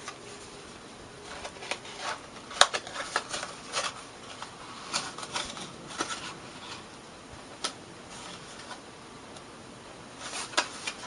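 Cardstock rustling and crinkling as hands fold and press the paper pieces together, with scattered short clicks, the sharpest about two and a half seconds in.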